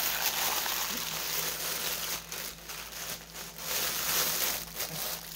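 Plastic postal mailer bag crinkling and rustling as it is handled, with a string of short crackles.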